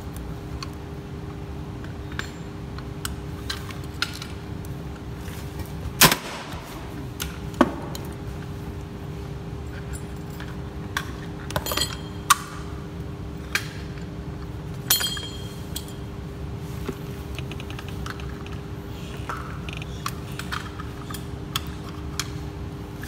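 Scattered sharp clicks and light clinks from hands working an air circuit breaker and its handheld trip-unit test set, over a steady low hum. The loudest click comes about six seconds in.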